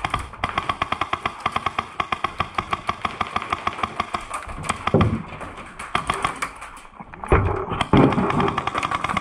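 Polarstar Jack HPA airsoft engine in a G&G rifle firing full-auto in long bursts of rapid, evenly spaced shots, about ten a second. A few louder low thuds fall in the middle.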